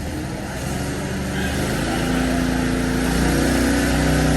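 Small gasoline engine of a gas-powered ventilation fan running up to speed. It grows louder through the first half, and its pitch steps up about three seconds in.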